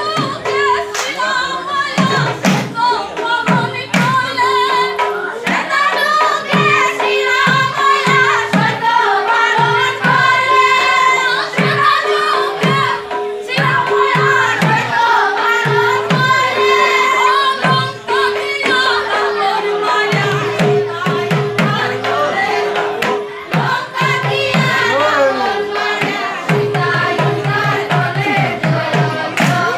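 Group singing of a devotional song over a hand-played double-headed barrel drum (dhol) beaten in quick, steady strokes, its low strokes dropping in pitch; a steady held tone runs underneath.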